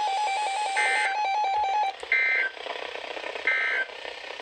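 Three short warbling data bursts of the EAS/SAME end-of-message code on NOAA Weather Radio, about a second and a half apart, marking the end of the severe thunderstorm warning. A fast-pulsing beep tone runs under the first burst and stops about two seconds in.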